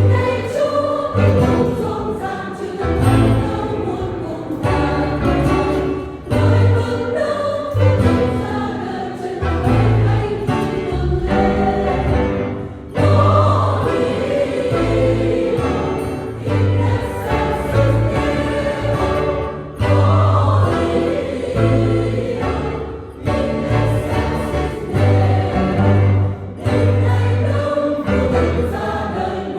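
Choir singing a song with instrumental accompaniment and a prominent bass line of repeated low notes.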